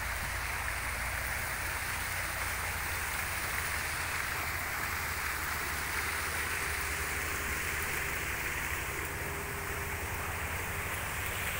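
Steady rush of running water, with a low rumble underneath. A faint steady hum comes in about halfway through and fades before the end.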